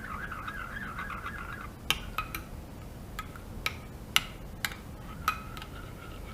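A whisk stirring gelatin into warm milk in a small container, with about eight sharp clicks as it knocks against the sides. A faint wavering high whine runs through the first second or so.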